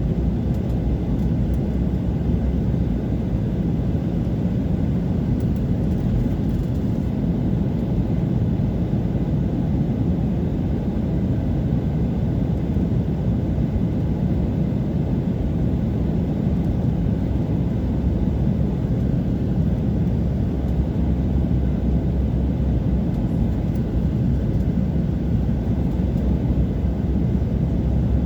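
Passenger airliner in flight heard from inside the cabin: a steady, even rumble of engines and rushing air.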